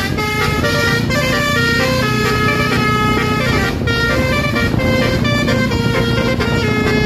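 Indonesian bus basuri (telolet) musical horn playing a melody of short, rapidly changing notes, over a low rumble.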